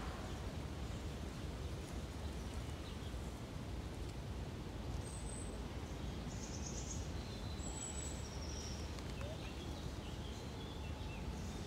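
Steady low outdoor rumble with scattered short, high bird chirps, more of them in the second half.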